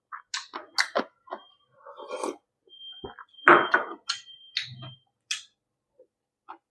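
Close-up eating sounds: chewing and mouth clicks on rice and beef stir-fried with pickled mustard greens, mixed with sharp taps and clicks. The loudest sound comes about three and a half seconds in.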